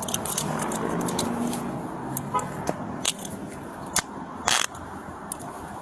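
Outdoor parking-lot noise picked up by a police body camera, with faint traffic, scattered sharp clicks and a brief rustle about four and a half seconds in.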